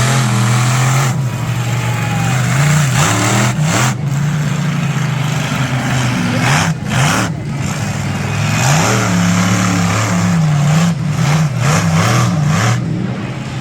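Monster truck engine revving hard, its pitch rising and falling over and over.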